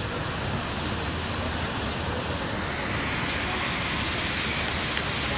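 Steady outdoor rushing noise with a low rumble and no distinct events; it turns a little hissier about halfway through.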